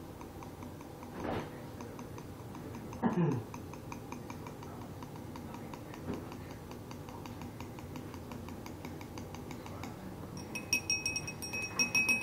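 A glow stick tube tapped against the rim of a drinking glass to shake out its liquid: faint small taps, then a quick run of ringing glass clinks near the end. About three seconds in there is a short sound that drops in pitch.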